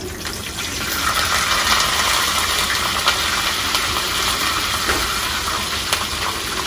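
Hot oil sizzling steadily in a small pan as curry leaves and dried red chillies are tempered, the sizzle swelling about a second in.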